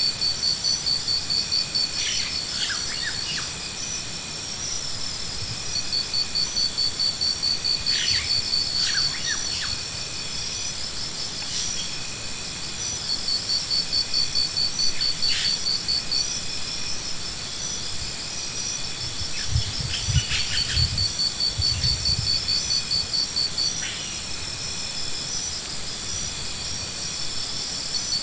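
Insects singing outdoors in repeated pulsing phrases a few seconds long, over a steady high insect drone. A few short chirps fall between the phrases, and a brief low rumble comes about three-quarters of the way through.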